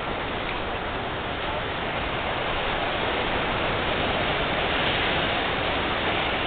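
Steady rushing noise of wind and ocean surf along the shore, a little louder in the second half.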